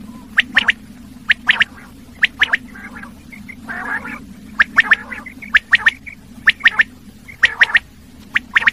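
Male common quail giving its three-note 'wet-my-lips' call over and over, quick triplets of short sharp notes about once a second. There is a gap with softer, rougher notes around three to four seconds in, and a steady low hum underneath.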